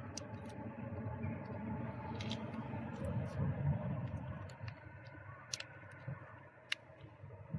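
Low handling noise with a few sharp clicks and ticks, from plastic tubes of oil additive being squeezed and emptied into a car engine's oil filler.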